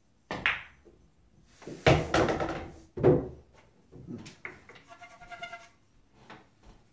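A pool shot: the cue tip clicks against the cue ball, then balls knock together and thud against the table, with short wordless voice sounds from the player in between.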